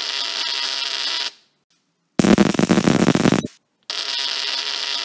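Homemade high-voltage spark generator buzzing as it fires a rapid stream of sparks across a small gap between two wires. It is built from an automotive relay driving a 1968 Volkswagen Beetle ignition coil, making hundreds of sparks a second. It runs in three bursts with short silent breaks: a steady buzz that stops just over a second in, a louder, rougher burst of about a second, then the steady buzz again.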